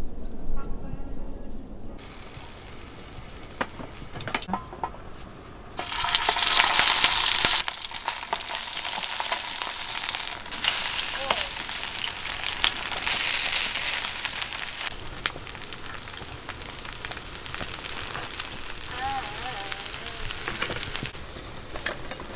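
Food sizzling and frying in a hot pan, with small crackles throughout; the sizzle swells louder twice, about six seconds in and again around thirteen seconds.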